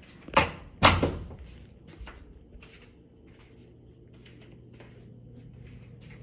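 Two sharp knocks about half a second apart as a door is shut, followed by a few faint taps.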